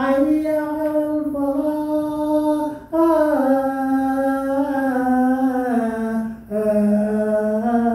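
Adhan, the Islamic call to prayer, chanted by a single voice in long, held, ornamented phrases. There are three phrases with short breaths between them, the pitch stepping down through the second.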